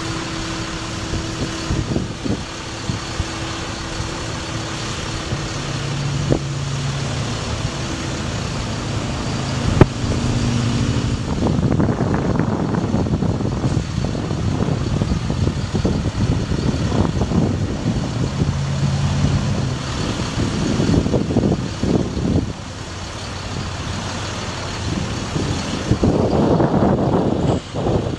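Ford F750 bucket truck running as its Versalift VN50 boom is raised and swung, with humming tones that come and go and a single sharp click about ten seconds in. The running noise gets rougher and louder from about twelve seconds on.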